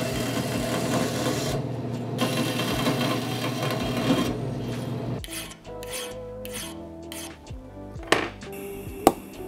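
A bandsaw cutting through a stainless steel rod, a steady loud run for about five seconds. Then a hand file scrapes the cut end in repeated short strokes, with two sharp snaps near the end.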